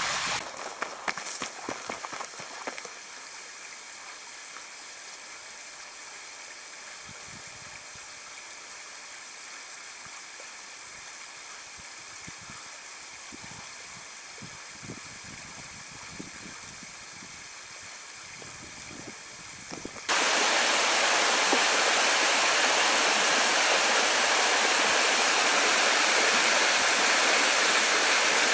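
River rapids, water rushing over rocks: a steady, fairly soft rush with a few knocks near the start, then about two-thirds of the way through an abrupt change to a much louder, closer rush of water.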